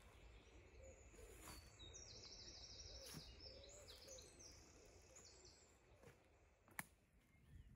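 Faint songbird singing: quick runs of short high notes repeated in several phrases over a low background hush, with a single sharp click about seven seconds in.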